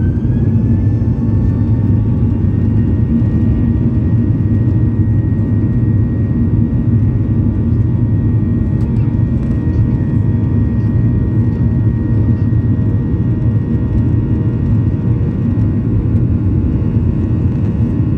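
Jet airliner's turbofan engines heard from inside the cabin spooling up to takeoff thrust: a whine rises and levels off about a second in, then holds steady over a loud, even rumble as the aircraft accelerates down the runway.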